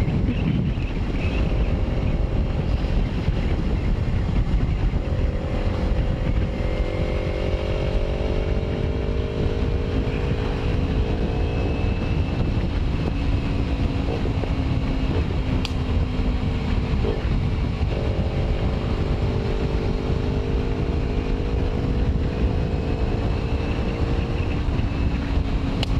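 Kawasaki Ninja 250R's parallel-twin engine running at a steady highway cruise, its pitch drifting slowly down and back up, under heavy wind rumble on the bike-mounted microphone.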